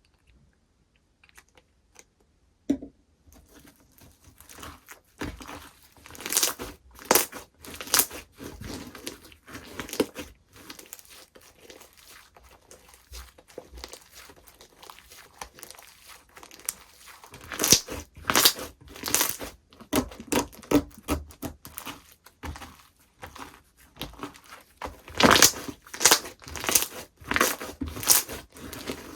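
Hands playing with slime: dense crackling and crunching with clusters of louder crackles, starting after a nearly quiet first few seconds and a single thump.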